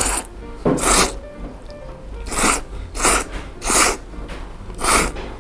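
A person slurping extra-thick Yoshida udon noodles: a series of short, sharp slurps at uneven intervals, about six in five seconds.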